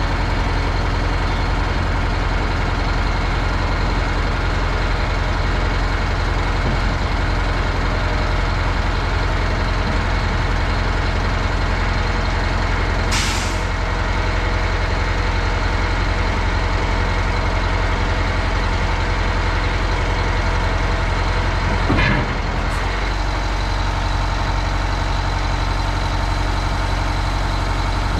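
Oshkosh MK48 heavy military truck's diesel engine running steadily under load as its hydraulic load-handling arm pulls a loaded flatrack onto the bed. A short air hiss about 13 s in, and a clunk about 22 s in as the rack comes down, after which the engine note drops.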